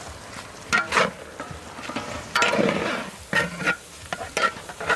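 Noodles and vegetables being stir-fried in a pan over sizzling, with a utensil scraping and striking the metal pan in about five quick strokes.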